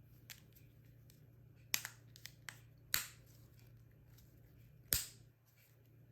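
Sharp plastic clicks and snaps from an Infiniti key fob's case being handled during a battery change: a few small ticks, then three louder snaps, the last near the end.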